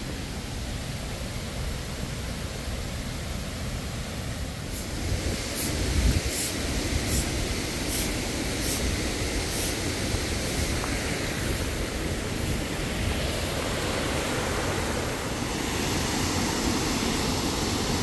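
Steady rushing of water cascading over the terraced concrete weir of an artificial waterfall, growing louder about four seconds in as it is approached. A short run of light, evenly spaced ticks sits over it for a few seconds, with a low bump about six seconds in.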